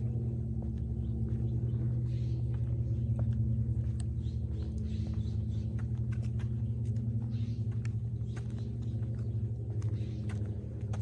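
A steady low mechanical hum with a pitched drone, like an idling engine or outdoor machinery, with irregular crunching clicks of footsteps on dry leaves.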